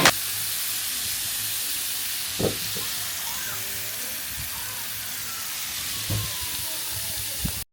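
Burger patties sizzling on an indoor barbecue grill, a steady hiss, with two light knocks about two and a half and six seconds in.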